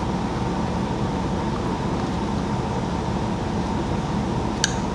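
Steady mechanical drone with a hum, and one sharp metallic click near the end.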